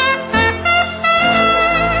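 Jazz music: a brass lead, trumpet-like, plays a melody of held and moving notes over a band accompaniment, in an instrumental passage between sung lines.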